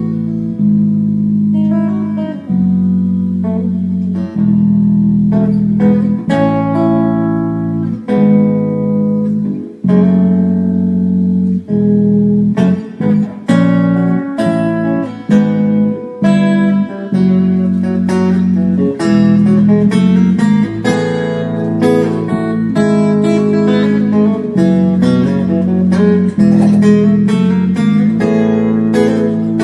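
Guitar music: ringing chords that change every second or two.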